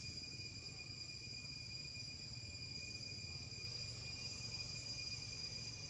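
Faint, steady insect chorus: a continuous high-pitched drone with two constant pitches, over a low hum.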